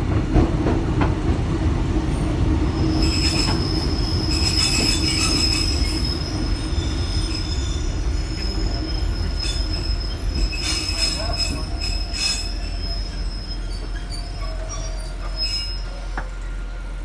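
Vintage electric railcar heard from inside the passenger car: the steady low rumble of the wheels on the rails, with a high, thin wheel squeal from about three seconds in until about thirteen seconds, and briefly again near the end, while the train slows.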